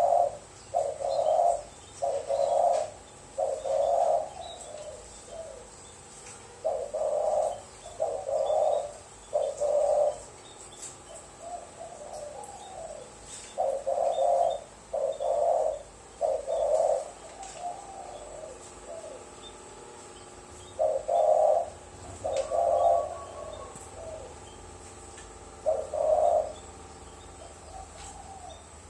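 Spotted dove (terkukur) cooing in the stuttering 'gagap' style: several phrases of low, rapidly repeated coos, separated by pauses of a few seconds, with faint small-bird chirps behind.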